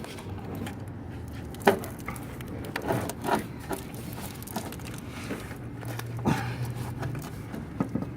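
Irregular knocks, clicks and scraping as a thick 0-gauge power cable, led by taped-on socket wrench extensions, is worked through a car's firewall grommet. The sharpest knock comes about a second and a half in, with more near three and six seconds, over a low steady hum.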